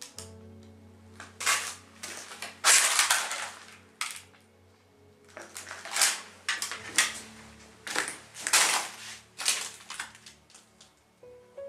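Footsteps crunching over rubble and debris on a concrete floor: a dozen or so irregular crunches, one longer scrape about three seconds in. Faint background music with held notes sits underneath.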